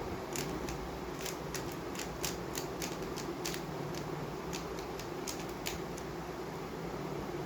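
A MoYu WRM V10 ball-core 3x3 speedcube being turned fast during a speedsolve: a rapid, irregular run of sharp plastic clicks that stops about five and a half seconds in. A steady low hum runs underneath.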